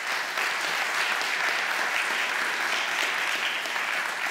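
Audience applauding steadily after a conference talk ends.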